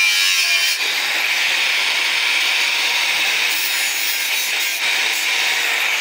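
Electric angle grinder with an abrasive disc cutting through a flat steel strip: a loud, steady grinding whine, with a brief dip under a second in.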